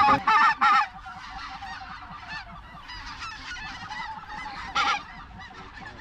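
A large flock of geese honking overhead: many overlapping short calls, with a few louder calls in the first second and again about five seconds in.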